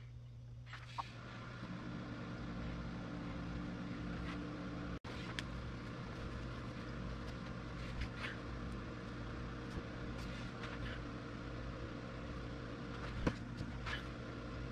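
A steady low mechanical hum sets in about a second in and holds, with a few faint taps and clicks over it.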